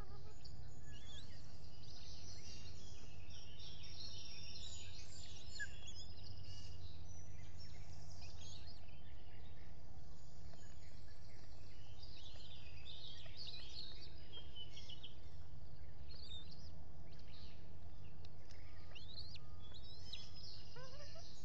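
Many small birds singing and chirping in the background in a busy chorus, over a steady low rumble of outdoor noise on the microphone, with a few rising calls near the end.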